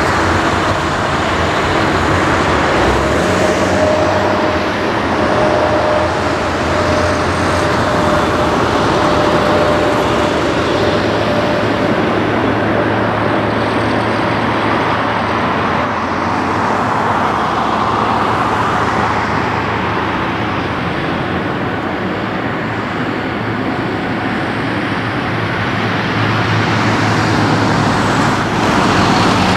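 Boeing 747-8 Freighter's four GEnx-2B turbofan engines at takeoff thrust: a loud, steady jet rush through the takeoff roll and climb-out. A thin steady whine rides over it from a few seconds in to about ten seconds, and the noise swells again near the end.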